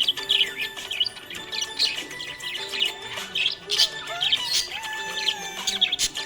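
Budgerigars chirping and warbling, many quick high chirps overlapping one another, with some longer held notes underneath.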